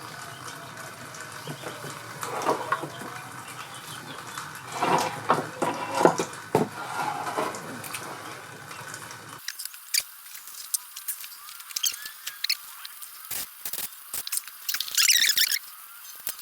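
Irregular metallic clinks, knocks and scrapes of engine parts and tools being handled during disassembly of a motorcycle engine. A denser scraping rattle comes near the end.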